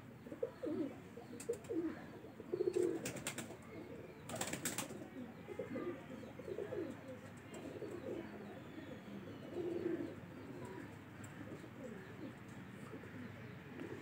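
Pigeons cooing in low repeated phrases: courtship cooing from a pair billing in the breeding season. A few short sharp clatters come between about one and five seconds in.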